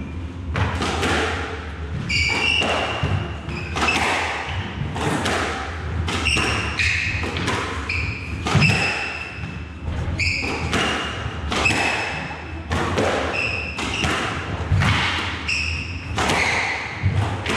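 Squash rally: the ball is struck by racquets and smacks off the walls in sharp, echoing hits every half-second to second, with short high squeaks from shoes on the wooden court floor between the hits.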